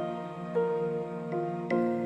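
Gentle instrumental background music: sustained notes, with a new note or chord struck three times.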